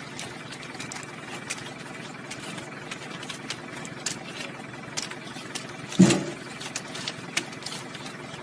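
An engine running steadily, with frequent sharp clicks and knocks over it and one loud thump about six seconds in.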